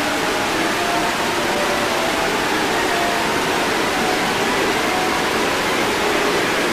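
Loud, steady hiss of television static (white noise), with a few faint steady tones beneath it.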